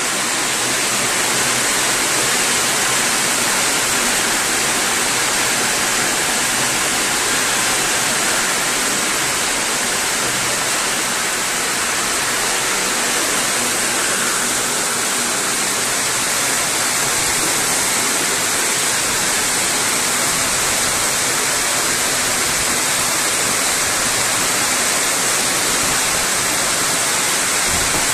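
Heavy hailstorm: hailstones and rain falling densely onto the street and pavement, a loud, steady hiss that keeps up without a break.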